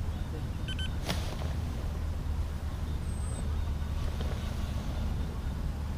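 Wind buffeting the microphone as a steady low rumble, with a sharp click about a second in and a brief high chirp about halfway through.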